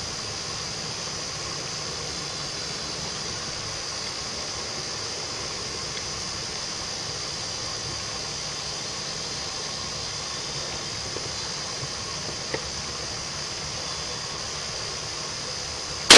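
Steady hiss of recording noise with one faint tick, then a single loud shotgun shot right at the end that rings on briefly.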